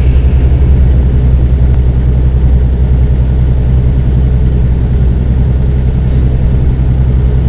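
Steady low drone of engine and road noise heard from inside a vehicle's cabin while it drives along a highway.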